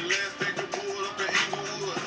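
Background music with a regular beat.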